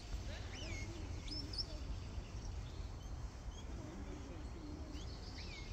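Steady low wind rumble on the microphone, with a few short, scattered bird chirps over it.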